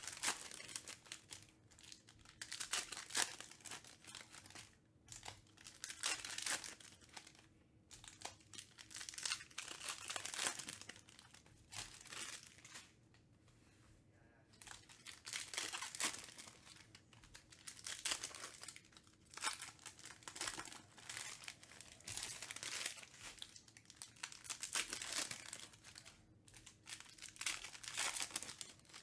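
Wrappers of Panini Prizm trading-card packs being torn open and crinkled, with the stack of cards handled between packs. The crinkling comes in irregular bursts, with a short lull about halfway through.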